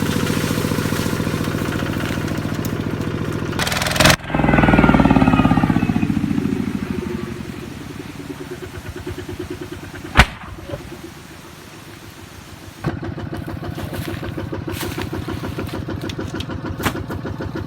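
Kubota RT155 single-cylinder diesel engine running. About four seconds in comes a sharp bang and a loud surge, after which the engine slows and runs down over several seconds. A sharp click comes near the ten-second mark, and about thirteen seconds in the engine starts again and runs steadily.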